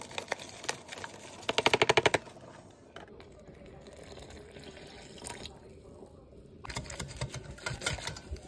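Powdered fritter mix pouring from a paper packet into a glass bowl, with a brief fast rattle about two seconds in. Then a cup of water poured into the powder, and for the last couple of seconds a wire whisk clicking and scraping against the glass bowl as the batter is mixed.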